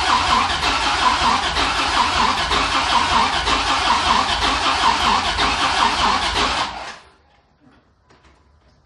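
2000 Dodge Viper GTS 8.0-litre V10 being cranked by its starter for about seven seconds without catching, then cut off abruptly. The engine turns over but does not fire because the fuel pump is not delivering fuel.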